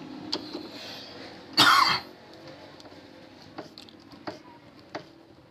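One short cough about one and a half seconds in. Then a few faint clicks from a screwdriver working on a metal hatch latch.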